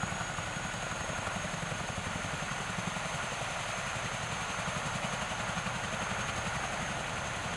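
Chinook tandem-rotor heavy-lift helicopter idling on the ground with its rotors turning, as it is refuelled. A steady high turbine whine sits over a fast low pulsing from the rotors.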